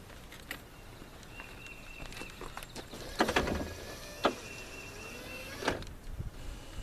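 Power window motor in a 1980s Ford truck door running the glass down and back up, worked by a newly fitted GM window switch, with clunks as the glass reaches each end of its travel.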